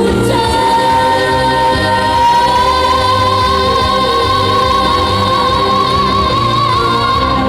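Female singer holding one long high note with vibrato over a live band backing track, near the end of a trot song.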